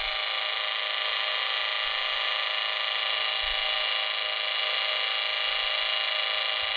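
Lightsaber idle hum played by a Proffieboard v2.2 sound board through its 28 mm bass speaker: a steady electric buzzing drone that holds level without change.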